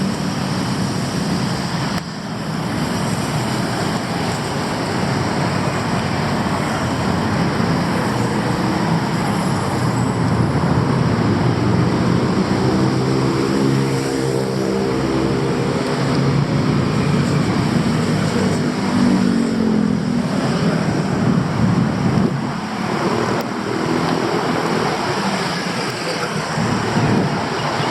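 City street traffic: a steady wash of passing cars and other vehicles, with one vehicle's engine passing close by around the middle.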